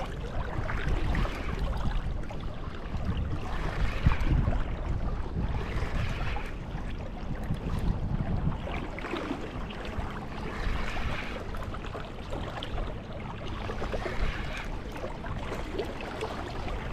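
Steady rush of river current with wind buffeting the microphone; the water noise swells and fades every few seconds.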